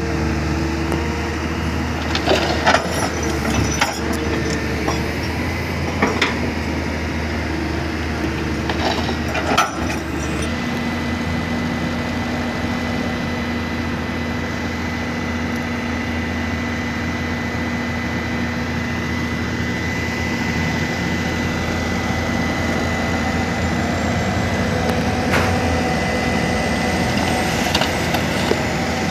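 Diesel engine of a loaded light dump truck running steadily, with scattered knocks and clatters in the first ten seconds. About ten seconds in, the engine note shifts and a thin steady whine joins it as the bed is raised to tip out the load of soil.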